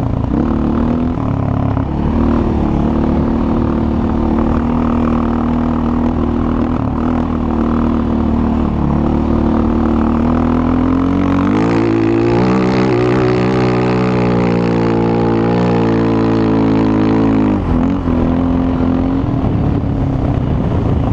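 Yamaha Raptor 700SE quad's single-cylinder engine running under throttle over sand. Its pitch climbs steadily for several seconds past the middle, then drops sharply near the end.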